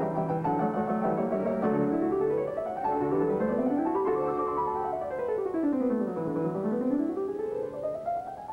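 Background piano music: runs of notes sweeping up the keyboard, back down, and up again.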